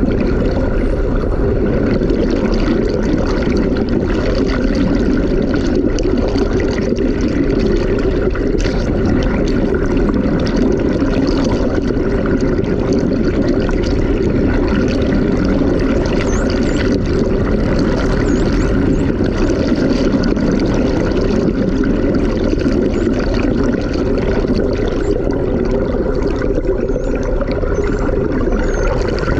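Underwater recording beside a boat hull: a steady, loud rush of water with a low hum and a few steady tones from the boat. Faint high whistles from the dolphins glide up and down now and then.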